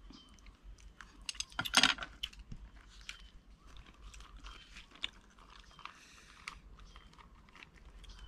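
Rice paper crackling and crunching as it is handled, folded and rolled around fish and herbs, with a loud burst of crackles about two seconds in and smaller crinkles after. Birds chirp faintly.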